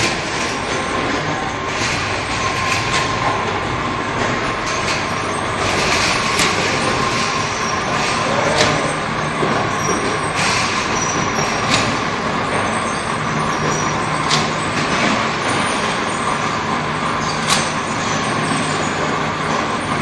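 Automatic shrink sleeve labeling machine for 5-gallon water-bottle necks running: a steady mechanical whir with a constant mid-pitched whine and a few scattered sharp clicks.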